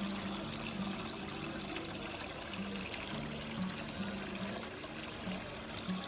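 Steady trickling and splashing of running water, with background music carrying a low melody of held notes.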